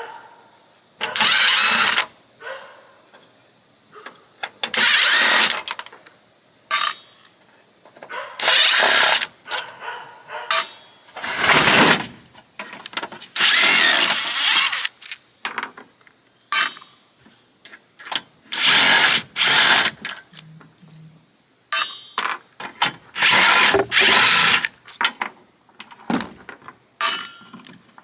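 Power drill running in about a dozen short bursts of a second or so, with small clicks and knocks between them.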